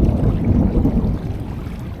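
Wind buffeting the microphone, a low irregular rumble that is loudest in the first second and then eases.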